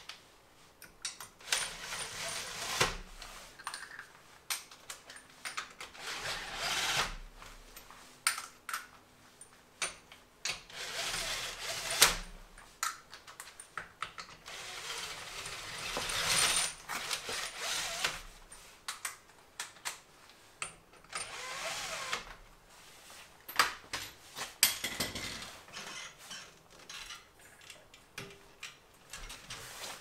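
Drill with a 22 mm socket spinning wheel nuts onto the wheel studs in several short runs of one to two seconds, with metal clicks and clinks between the runs.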